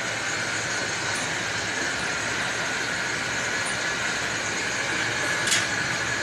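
Belt-driven metal lathe running with a tractor flywheel spinning in its chuck for facing: a steady mechanical din with a strong high-pitched hiss. There is one brief sharp click about five and a half seconds in.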